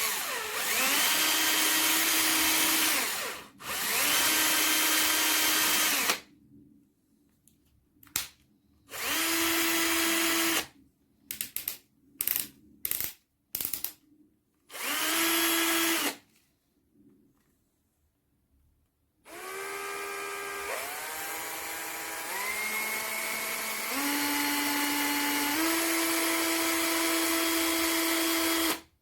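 Bosch EasyImpact 18V-38 cordless drill motor run in repeated trigger pulls. Several runs of a few seconds each spin up to a steady whine, with a cluster of quick short blips in the middle. A longer run near the end shifts speed up and down in steps.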